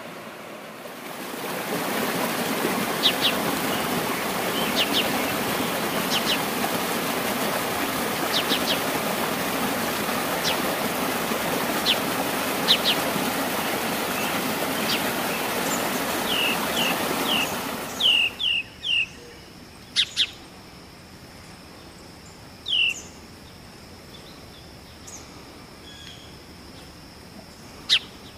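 Water rushing over a small rocky cascade, a steady loud noise, with short bird chirps above it. About eighteen seconds in the water stops abruptly, leaving scattered bird chirps, a quick falling series among them, over a faint steady high tone.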